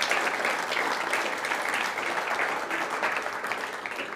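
Audience applauding in a lecture hall at the close of a talk, the clapping tapering off near the end.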